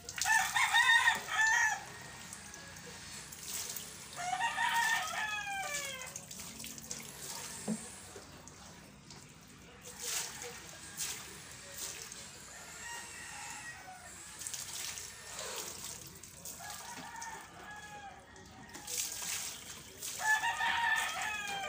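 Roosters crowing about five times, the first and last crows loudest and the middle ones fainter, each call dropping in pitch at the end. Between the crows, water is poured from a plastic dipper over a dog and splashes.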